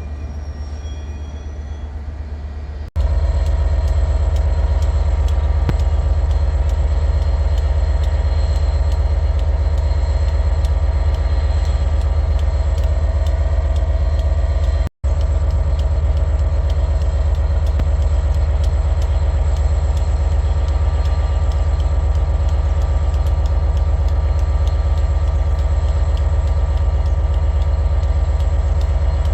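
A train's diesel engine running steadily close by, a loud continuous rumble with a steady hum over it. It cuts in abruptly about three seconds in and drops out for a moment about halfway through.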